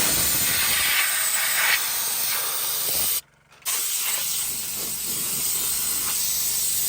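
Compressed air blowing out the backhoe's air filters: a steady hiss that stops for about half a second a little after three seconds in, then resumes.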